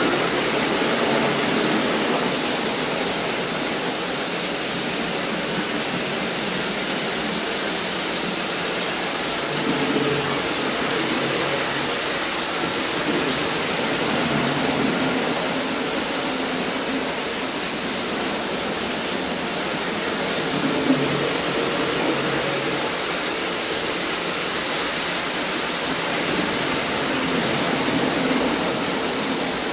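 Several Märklin H0 model trains running at once on metal track: a steady whirring rush of wheels and small electric motors, with a faint hum that rises and falls slightly.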